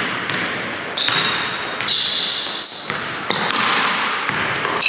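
Basketball shoes squeaking on a hardwood gym floor, a run of short, high squeaks from about a second in, along with a basketball bouncing, echoing in a large gym.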